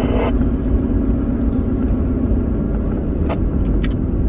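Steady low rumble of a vehicle, heard from inside the cab, with a few sharp ticks in the second half.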